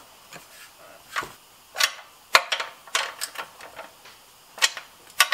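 Scattered sharp clicks and light metal knocks, about seven spread irregularly, from a hand-held socket tool working the recoil starter bolts on a Honda GX200 engine as they are tightened by hand.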